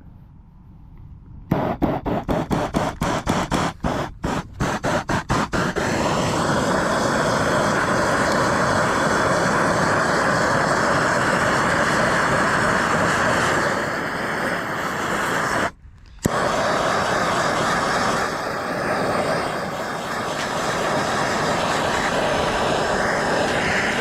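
Propane torch lighting: it sputters in a quick run of irregular pops for a few seconds, then settles into a steady loud flame roar. The roar breaks off briefly partway through.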